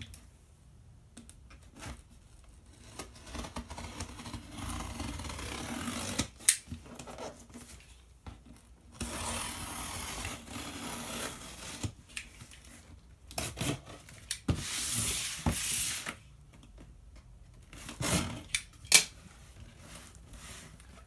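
A cardboard shipping box being opened by hand: packing tape cut and torn, and flaps and packaging scraping and rustling in irregular spells, with a few sharp snaps.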